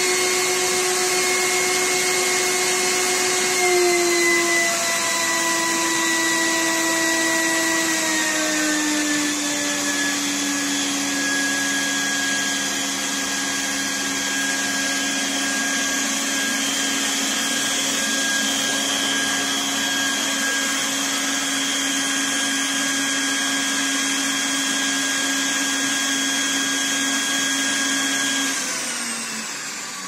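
Two series-connected vacuum-cleaner motor turbines of a homemade central vacuum running on its second speed with a steady whine. The pitch steps down about 4 seconds in and again a few seconds later. Near the end the whine falls in pitch and fades as the motors wind down.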